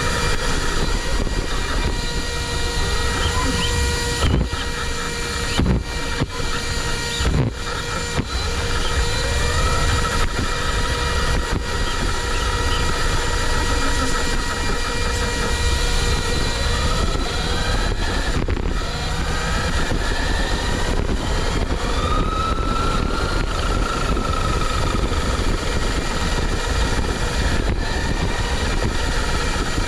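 An RC car's Apex 4076 brushless electric motor whining, its pitch rising and falling as the throttle changes, over a steady rushing noise. There are a few short breaks in the sound in the first several seconds.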